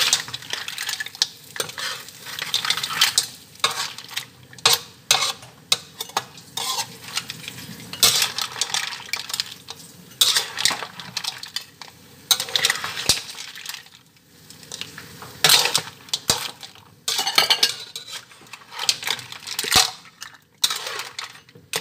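A cooking utensil scraping and clanking against a pan, in irregular bursts, as a seafood and corn dish is stirred, with a light sizzle underneath.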